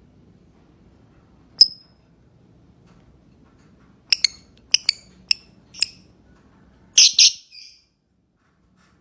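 Lovebird giving short, shrill, high-pitched chirps. There is one call, then a quick run of about six, then a louder double call near the end.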